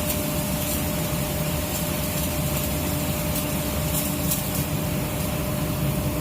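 A machine running steadily, a constant hum with a thin steady whine above it.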